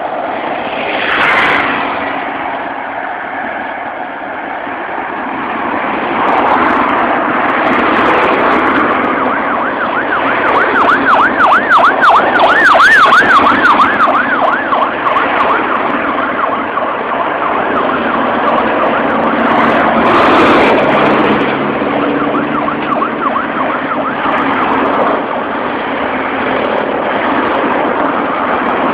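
Busy highway traffic passing steadily, with a fast up-and-down warbling siren for several seconds a little before the middle, returning faintly later.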